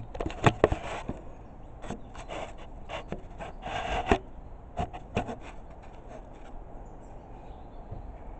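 Wooden timber rafter being handled and set on the roof frame: a run of short knocks and scrapes of wood on wood, the loudest about half a second in, dying away after about five seconds.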